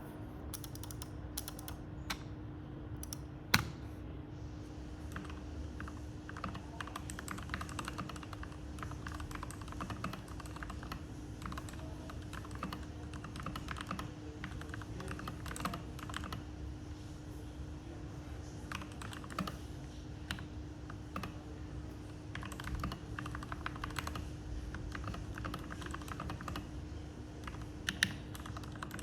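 Typing on a custom mechanical keyboard with lubed Gateron Milky Yellow linear switches and Matcha keycaps: a steady run of rapid keystrokes with two louder single key presses, one a few seconds in and one near the end. A faint steady hum sits underneath.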